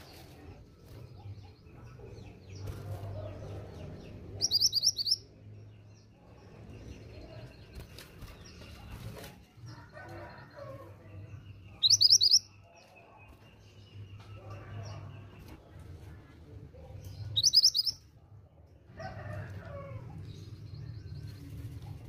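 Female mountain minivet (mantenan gunung) calling: three short, loud bursts of rapid high trilled notes, spaced several seconds apart.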